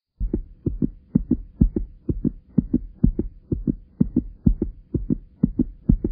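Heartbeat sound effect: paired low thumps in a steady lub-dub rhythm, about two beats a second, over a faint steady hum.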